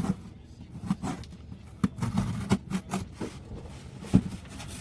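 A mailed package being handled and opened: scattered knocks, taps and scrapes on the box, with one sharp knock about four seconds in.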